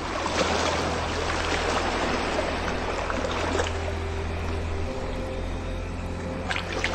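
Running, splashing water with a few sharper splashes near the end, layered over steady low ambient music tones.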